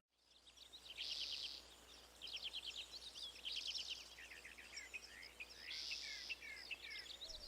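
Faint birdsong from small birds: short bouts of quick chirps and fast trills of falling notes, repeating every second or so.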